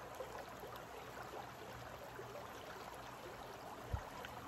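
Faint steady rush of a shallow, rocky creek flowing, with a brief low thump about four seconds in.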